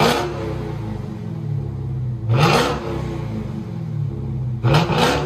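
2021 Dodge Challenger Hellcat's 6.2-litre supercharged Hemi V8 revved three times from idle through Black Widow Race Venom mufflers with the resonator deleted. Each rev climbs quickly and drops back to a steady idle, about two and a half seconds apart.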